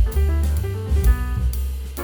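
Background music: an upbeat jazzy track with drum kit, cymbals, bass and keyboard-like melody notes.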